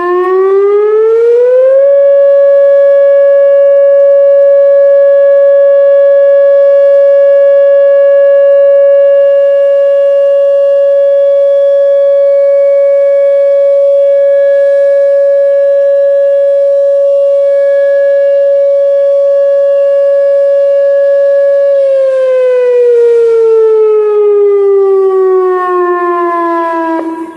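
Whelen WPS-2805 electronic outdoor warning siren sounding a short steady alert tone during a siren test. The tone starts suddenly, rises in pitch over about two seconds, holds one steady pitch for about twenty seconds, then slides down in pitch over the last five seconds.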